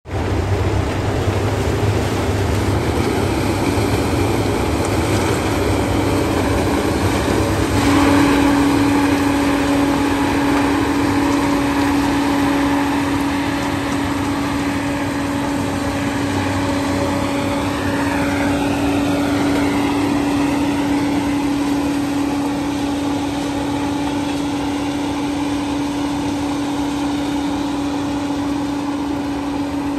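Sugarcane harvester and the tractor running alongside it, engines running steadily under load while the harvester cuts standing cane. A steady hum comes in about eight seconds in and holds.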